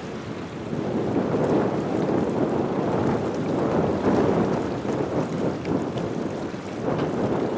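Jet engines of an Airbus A320neo, Pratt & Whitney PW1100G geared turbofans, at takeoff thrust, heard as a steady rumble that swells and eases slightly.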